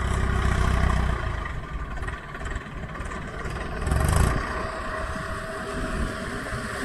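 Mahindra Arjun 555 tractor's diesel engine running as it drives, a steady low rumble that is loudest in the first second. A motor scooter approaches in the second half, with a brief louder swell about four seconds in.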